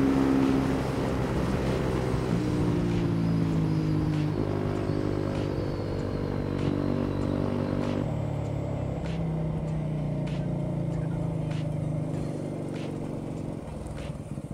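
Motorcycle engine running under way with wind rush, its pitch stepping up and down several times with gear changes and throttle. It eases off and gets quieter near the end.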